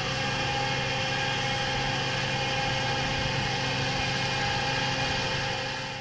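A Deutz-Fahr 5110 G tractor running steadily under load, driving a GL1 Kompass Avant 500 boom flail mulcher whose rotor is spinning and cutting grass. It is an even, unchanging machine hum with a high hiss over it, and it fades out near the end.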